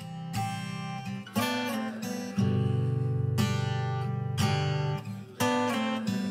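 Background music: an acoustic guitar strumming chords, about one strum a second.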